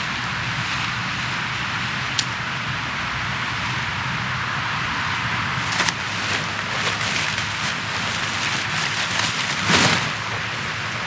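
Steady rain falling. Scattered taps and rustles join it about halfway through, the loudest near the end.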